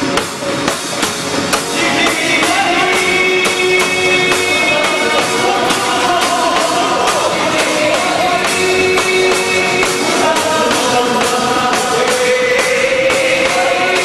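Loud music with sung vocals over a steady, evenly repeating percussion beat, of the kind played for a festa junina quadrilha dance.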